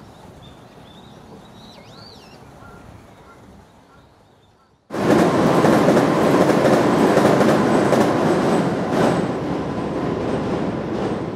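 Quiet outdoor ambience with a few faint bird chirps. About five seconds in, a sudden cut brings in a loud train crossing a railway bridge overhead: a dense, steady noise of wheels on rails that eases slightly near the end.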